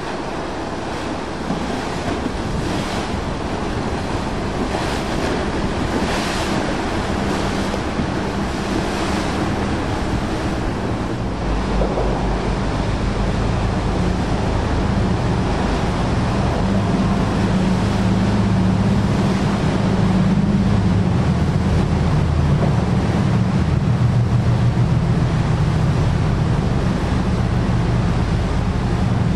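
Fast canal current and boat wakes rushing and churning, under a low drone of passing motorboat engines that grows louder in the second half, with wind buffeting the microphone.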